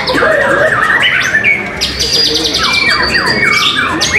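White-rumped shamas (murai batu) in full contest song: fast high trills of rapidly repeated notes mixed with slurred whistles and downward-sweeping phrases, several strands overlapping without a break.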